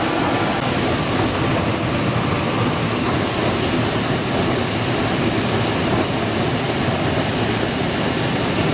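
Electric-motor, belt-driven grain flour mill running steadily while milling, a loud even rushing grind with no breaks.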